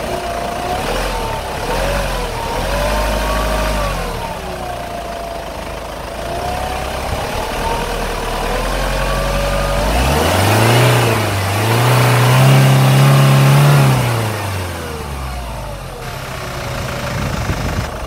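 Hyundai Grand Starex turbocharged engine idling with a whistling 'hoo' tone that wanders up and down in pitch. About ten seconds in it is revved, held for a few seconds, then drops back to idle. The whistle is loud from idle up to about 2000 rpm; whether it comes from the turbocharger, the alternator or the air-conditioning compressor is still in question.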